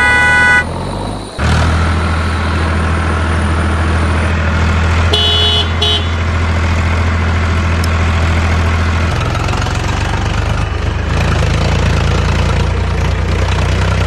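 A truck horn honks briefly, then a heavy vehicle engine runs with a steady low drone, with a second short horn blast about five seconds in.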